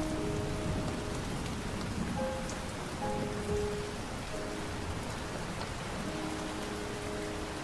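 Steady rain with soft background music of slow, long-held notes drifting in and out over it.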